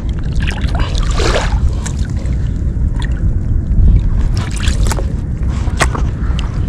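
Wind rumbling on the microphone, with a few short wet squelches and clicks of hands working in soft tidal mud.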